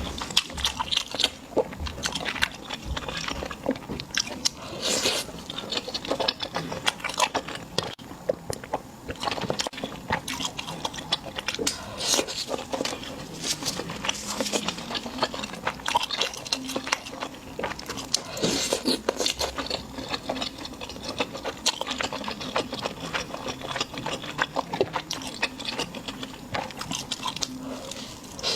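Close-miked eating sounds: a steady run of crisp, crunchy bites and chewing.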